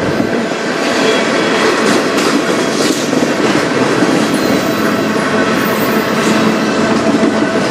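Freight cars of a passing manifest train rolling by at close range: a loud, steady noise of steel wheels running on the rails, with faint steady tones under it.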